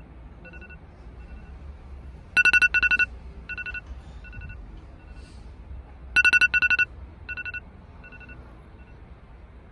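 Phone alarm ringing: a pattern of short, high electronic beeps that comes in loud clusters twice, each trailed by fainter repeating beeps.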